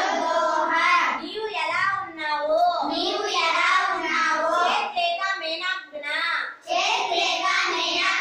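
Children reciting aloud in a sing-song chant, phrase after phrase, with short breaks between phrases.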